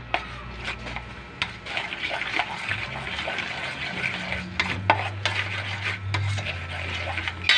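A metal spoon stirring thick flour-and-cornstarch batter in a stainless steel bowl, scraping the sides, with many quick clicks as it knocks against the metal. The batter is being beaten until no lumps are left.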